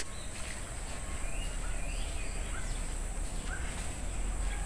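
Outdoor ambience: a steady high hiss with scattered short bird chirps.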